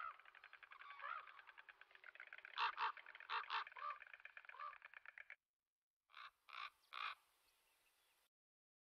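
A flock of common cranes calling, a dense run of overlapping calls with several louder calls in the middle. It cuts off suddenly, and after a short gap three more loud calls follow.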